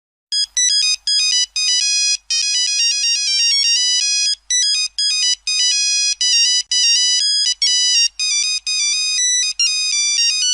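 Nokia mobile phone ringtone playing: quick runs of bright, high electronic beeping notes, starting a moment in and broken by brief gaps about every half second.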